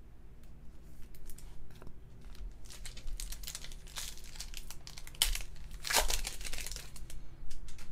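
Light rustles and clicks of a card being slid into a plastic sleeve, then the foil wrapper of a 2019 Topps WWE Undisputed trading card pack crinkling and tearing as it is ripped open by hand, loudest about five to six seconds in.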